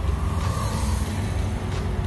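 Background music over a steady low rumble.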